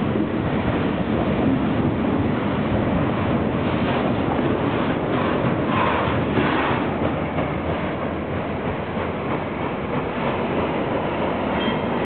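Freight cars of a local freight train, covered hoppers and box cars, rolling past close by: a steady rumble and rattle of steel wheels on the rails, with a spell of louder clattering about halfway through, easing off slightly in the last few seconds.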